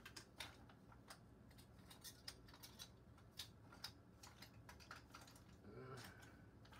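Faint, irregular light clicks and taps of painting tools being shifted about while searching for a palette knife.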